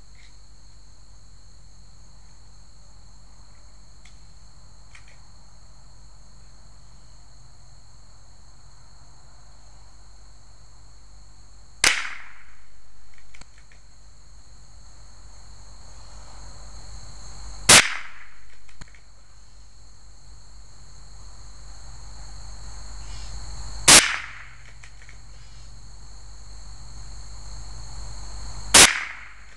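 A .22 rifle fired four times, a sharp crack every five or six seconds. Insects chirr steadily underneath.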